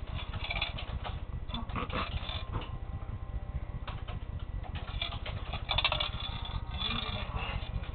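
Hamster running in a plastic exercise wheel: a steady low rumble from the spinning wheel with irregular light clicks and taps.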